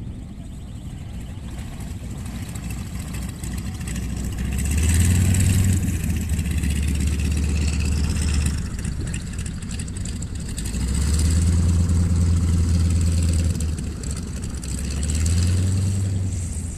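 Propeller engine of a light tow plane running on the airfield, swelling louder and easing off three times: about five seconds in, again from about eleven to thirteen seconds, and once more near the end.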